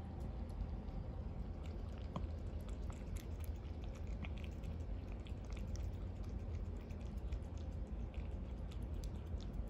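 A tabby cat eating wet cat food from a ceramic bowl: steady chewing and licking, with many small irregular clicks.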